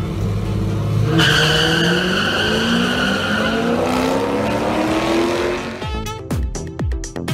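A drag car launching down the strip: its engine climbs steadily in pitch as it accelerates, with a tire screech starting about a second in. A run of sharp clicks and falling swoops comes near the end.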